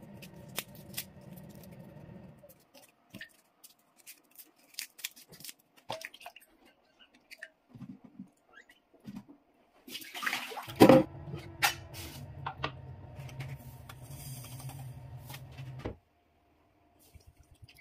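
Garlic cloves being peeled by hand, with small crackles and clicks of papery skin, and cloves dropping into a glass bowl of water. About eleven seconds in, a loud splash is followed by water running steadily for about five seconds, which cuts off suddenly.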